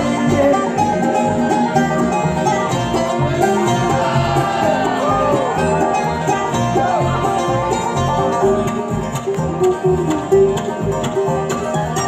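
Bluegrass band playing an instrumental break, with banjo and guitar over a steady beat and no singing.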